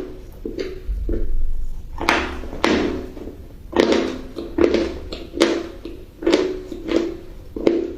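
Close-up chewing of crunchy food: a sharp crunch every second or so, each crackle fading quickly, about ten across the stretch.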